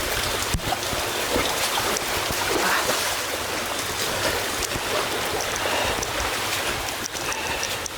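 Heavy rain and running floodwater making a steady wash of water noise.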